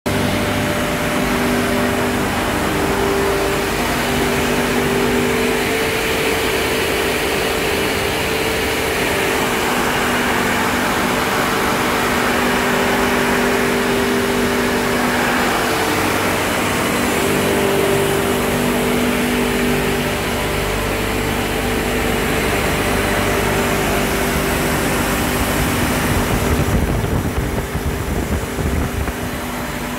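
S3-900 R22 freon refrigeration compressors and their electric drive motors running together: a loud, steady machinery drone with a few steady tones in it. About three seconds before the end it turns duller and lower.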